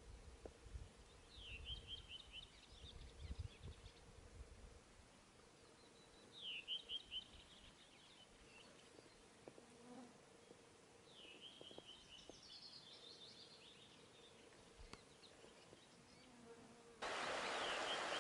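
Faint, steady, high buzzing of a flying insect that comes and goes, while a small bird sings a short descending phrase three times. About a second before the end, a much louder, steady rushing of flowing water cuts in abruptly.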